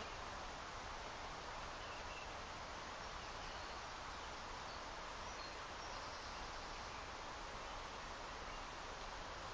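Steady outdoor background ambience, an even faint hiss with no distinct sound standing out.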